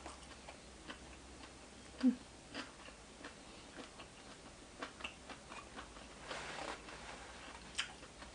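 Quiet mouth and eating sounds of a person eating: scattered small clicks and smacks, with a brief low sound about two seconds in and a short hissing noise in the second half.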